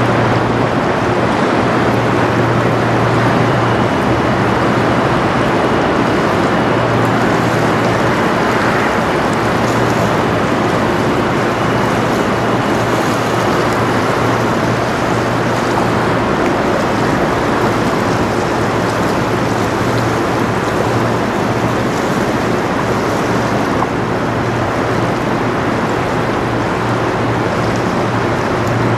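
A 1,000-foot Great Lakes bulk freighter passing close by, its steady low engine drone under the rush of water from the bow wake along the hull.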